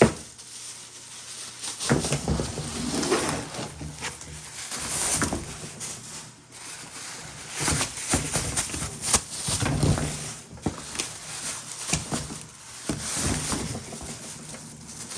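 Plastic bags crinkling and rustling in irregular bursts of crackles as chunks of chert are pulled out of them.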